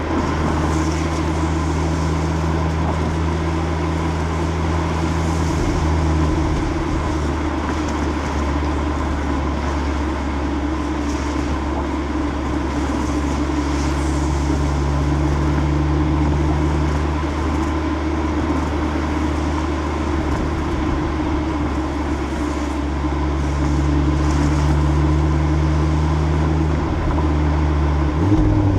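Exhaust of a stock Audi RS3's turbocharged 2.5-litre five-cylinder, heard from the rear of the car, droning steadily at a constant cruising speed over tyre and wind noise. Near the end the drone dips briefly and settles at a new pitch.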